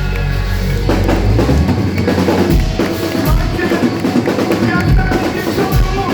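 Live band playing, with the drum kit to the fore: kick and snare hits. A held low bass note stops about a second and a half in.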